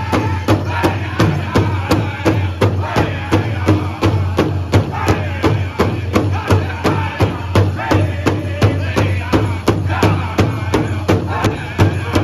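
Powwow drum group striking a large hide-covered drum in unison at a steady pulse of about three beats a second, with the men singing together over the drum.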